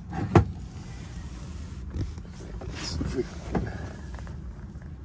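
Heavy rubber-jacketed marine cable being pulled and handled against a fiberglass boat console: a sharp knock about half a second in, then a few softer knocks and rustles, over a steady low rumble.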